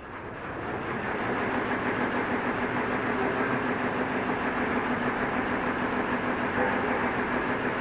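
Machine starting up and running steadily, the sound of an embroidery machine at work: it climbs to speed over about the first second, then holds an even hum.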